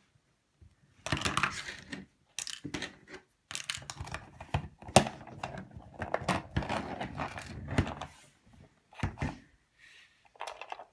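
Small plastic toy figures and play-set pieces handled and clattering together in quick, uneven clicks and knocks, with some rustling, as they are gathered up.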